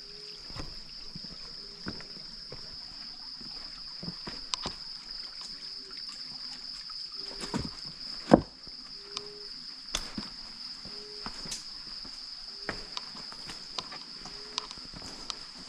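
Steady high-pitched drone of insects, with a short low call repeating about once a second. Footsteps and knocks on rock come through it, the sharpest about eight seconds in.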